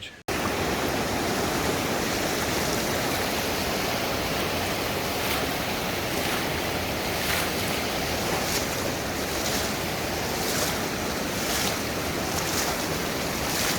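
Rushing flash-flood water, a steady loud roar, with brief louder hisses about once a second in the second half.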